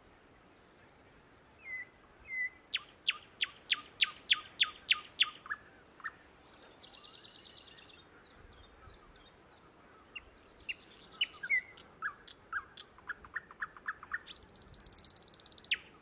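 Thrush nightingale (Luscinia luscinia) singing: a few whistled notes, then runs of sharp repeated notes at about four a second. These alternate with fast rattling trills, the last one near the end.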